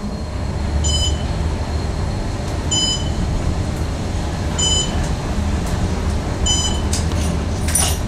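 Elevator car travelling, a steady low rumble, with a short electronic beep repeating about every two seconds, four times.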